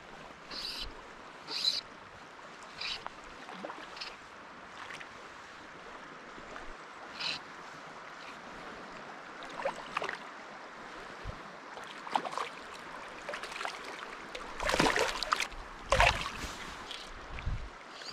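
Drift boat drifting on a fast clear stream: water running and lapping along the hull, with irregular splashes and knocks that grow louder in the second half, the strongest a little before the end. Short high chirps come several times in the first half.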